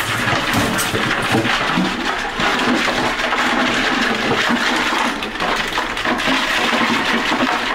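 Steady rushing and splashing of water, with small clicks through it.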